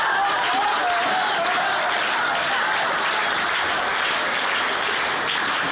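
A crowd applauding steadily, with a few voices over it in the first second.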